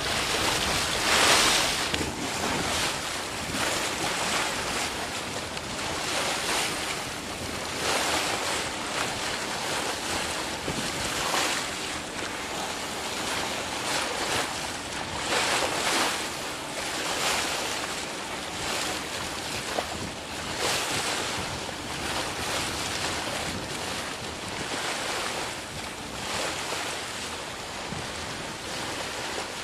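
A steady rushing, surf-like noise that swells and ebbs every second or two.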